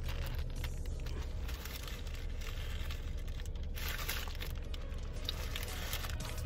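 Paper sandwich wrapper crinkling and rustling in the hands while a chicken sandwich is chewed, over a steady low hum in a car cabin.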